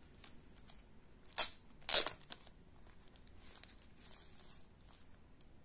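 Clear plastic film on a new smartphone crinkling and rustling as the phone is handled, with two sharp, louder crackles about one and a half and two seconds in, then lighter rustles and small clicks.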